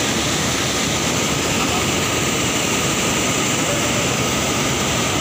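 River water rushing down a concrete spillway and churning into white water, a steady, unbroken rush.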